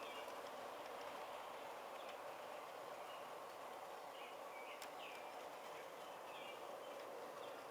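Small birds chirping in short repeated calls over a steady background hiss, with one sharp click about five seconds in.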